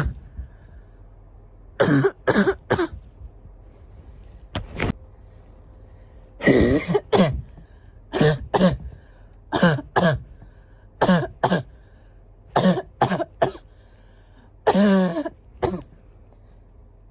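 Person's barking cough, coming in repeated fits of two or three harsh coughs every second or two. A couple of the coughs are longer and drawn out.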